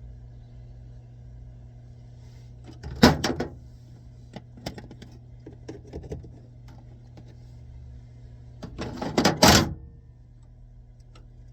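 Clicks, knocks and clatter of hard objects being handled, in a short burst about three seconds in, a few single clicks after, and a longer, louder burst around nine seconds, over a steady low hum.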